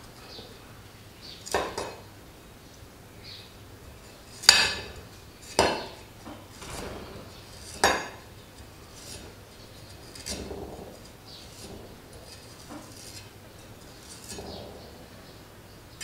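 A kitchen knife slicing a fresh galangal root over a granite mortar, pieces dropping in: a handful of sharp, separate knocks and clicks, four of them loud, with fainter cutting sounds between.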